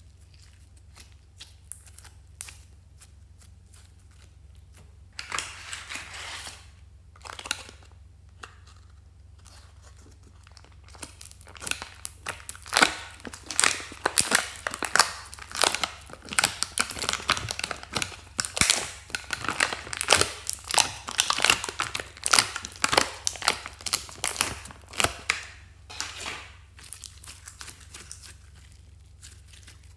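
Hands stretching, folding and squishing sticky glossy slime, making rapid clicking and crackling sounds. Sparse and faint at first, the crackling turns dense and loud from about ten seconds in and thins out near the end.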